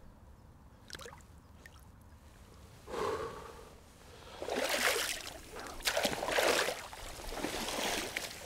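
Water sloshing and splashing in several short surges, starting about three seconds in.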